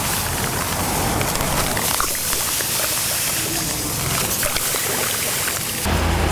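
Granulated sugar pouring from a bag in a steady stream into a large pot of water, a steady hiss that thins to a trickle after about two seconds.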